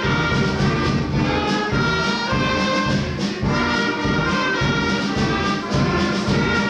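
Music led by brass instruments over a steady beat.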